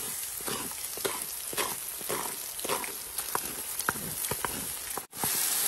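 Diced beef chuck frying in hot oil in a pan: a steady sizzle with scattered crackles and pops. The sound breaks off for an instant about five seconds in.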